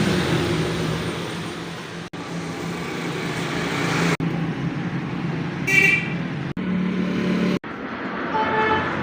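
Engine and street traffic noise in short clips joined by sudden cuts, with a brief vehicle horn toot about six seconds in.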